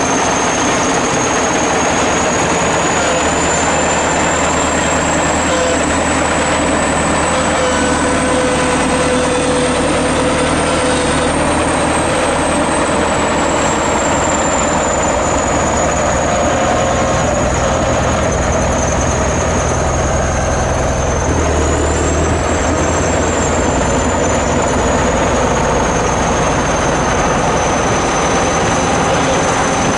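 ChTZ T-170 bulldozer's diesel engine running steadily, with a high whine that rises slowly and falls back. The engine note shifts about two-thirds of the way through.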